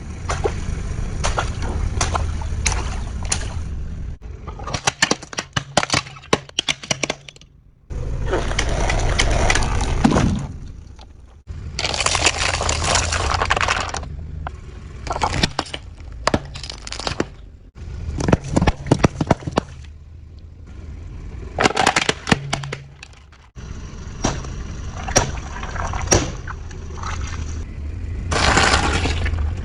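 Objects cracking and snapping as they are crushed under a vehicle's weight: many sharp cracks over a low rumble. The sound changes abruptly every few seconds.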